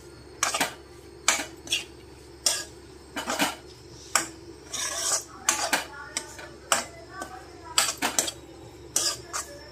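Steel spatula scraping and clinking against a kadai as chopped ridge gourd fry is stirred and mixed, in irregular strokes about two a second.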